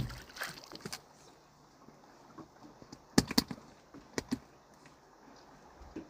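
Sharp knocks and taps against a small fishing boat as a caught fish is unhooked on the bench. There is one knock at the start, a quick cluster about three seconds in, and two more about a second later.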